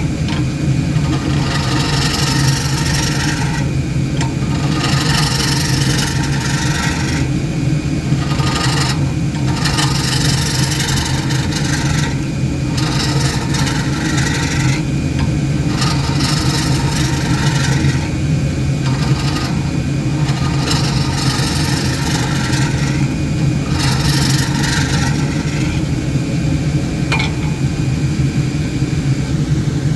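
Wood lathe motor humming steadily while a hollowing tool scrapes into the spinning wood in repeated passes, each a second or two long with short breaks between.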